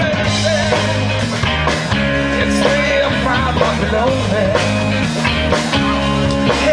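Live rock band playing amplified through PA speakers: electric guitars and a drum kit in a passage between sung lines, with a steady beat.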